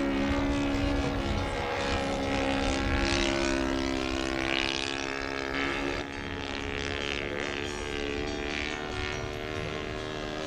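Engine and propeller of a radio-controlled scale de Havilland DH.82 Tiger Moth biplane, running steadily as it flies past. It gets a little quieter about six seconds in.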